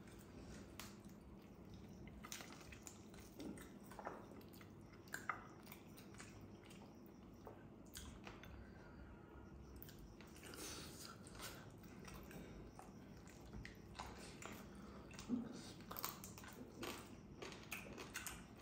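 Faint chewing, lip smacks and small wet clicks of two people eating barbecued chicken with their hands, irregular and busier in the second half.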